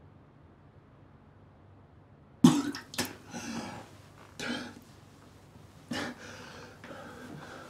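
A man coughing and gagging over a toilet in a few harsh bursts, the first and loudest about two and a half seconds in, the others coming roughly every second or two.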